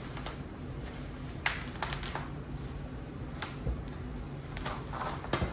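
Packaging being pulled and torn open by hand: scattered crinkles and sharp clicks, a little louder near the end.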